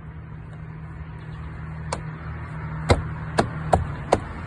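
Sharp taps on the edges of a Fiat 500's plastic door trim panel to seat it in place: five taps, the first about two seconds in, then coming about two to three a second. A steady low hum runs underneath.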